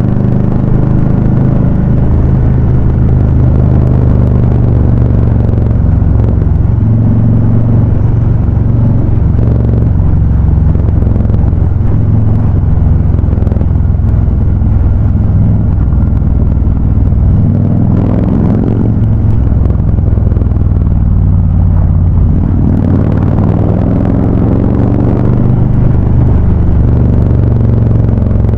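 Harley-Davidson Ultra Classic V-twin motorcycles with Vance & Hines High Output exhausts running on the road, a loud, deep, steady exhaust note. The pitch rises briefly as the throttle opens about eighteen seconds in and again around twenty-three seconds.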